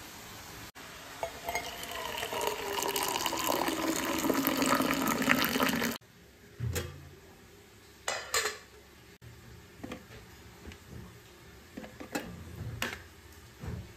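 Water bubbling hard in a small saucepan, growing louder for about six seconds, then cutting off. A few short clinks and knocks of metal follow as an aluminium steamer lid and steel cups of puttu are handled.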